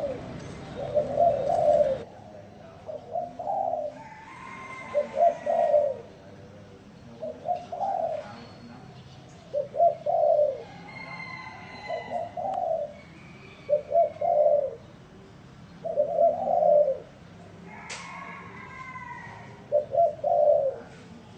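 Spotted dove cooing: short low coo phrases repeated every second or two, the 'gù' coo that dove keepers prize.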